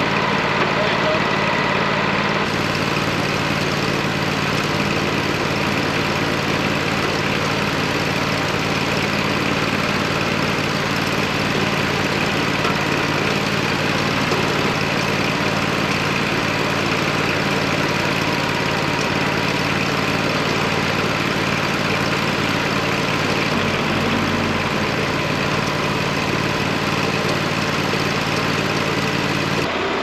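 Tractor engine running steadily at a constant speed, with a slight change in its low tone near the end.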